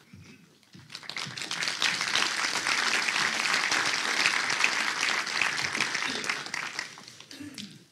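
Audience applauding, a dense patter of many hands that builds about a second in, holds steady, then dies away near the end.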